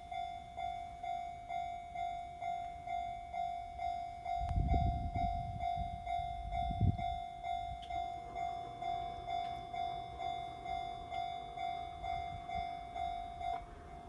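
Japanese railway level-crossing alarm ringing its electronic warning bell, a steady repeated ding about two strikes a second. A low rumble swells between about four and seven seconds in.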